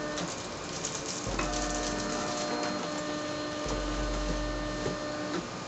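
Vinyl cutting plotter cutting a vinyl sheet, its stepper motors whirring in steady tones as the blade carriage and feed rollers move. The tones break off and change pitch a few times, and a low hum comes in twice.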